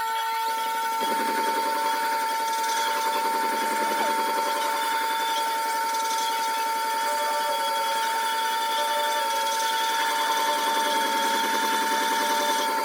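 Güde wet sharpening grinder running, its audio sped up: a steady high whine with a fast, even rasping pattern underneath, as of a blade worked against the turning stone.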